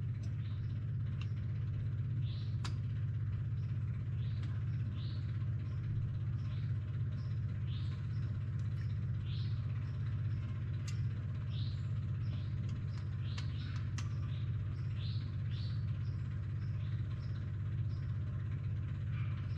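A steady low hum, with birds chirping repeatedly over it and a few light ticks.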